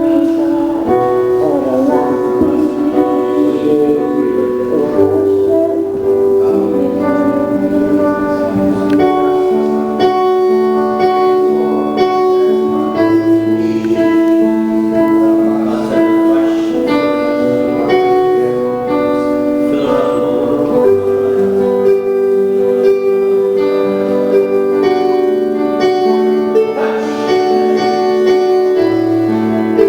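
Keyboard playing slow worship music in long held chords over a bass line, the chords changing every couple of seconds.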